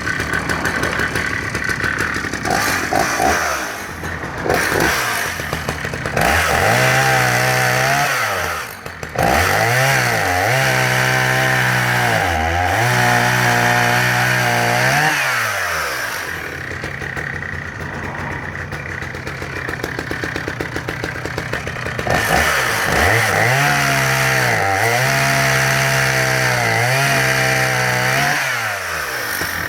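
Husqvarna 480CD 77cc two-stroke chainsaw at full throttle in two long runs, its engine pitch sagging and recovering again and again as the chain bites into the wood: cutting logs. Between the runs, about 16 to 22 seconds in, it drops back to a lower, quieter running speed.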